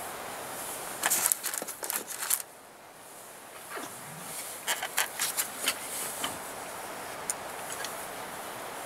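Small parts of an MX-80 pistol crossbow being handled and fitted together: a cluster of sharp clicks and rattles about a second in, and another around five seconds in, over a steady background hiss.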